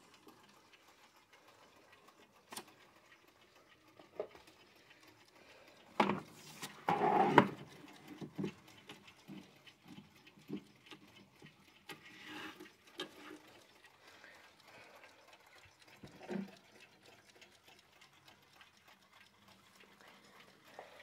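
Clocks on a shelf being handled: irregular knocks, clicks and rustling, loudest in a clatter about six to seven and a half seconds in, with faint clock ticking.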